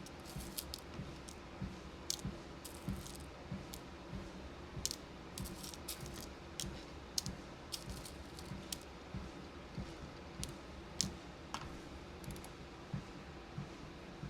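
Walking pad treadmill running with a steady low hum under regular footfalls, while irregular light clicks and small rattles come from beads and plastic bead containers being handled and sorted.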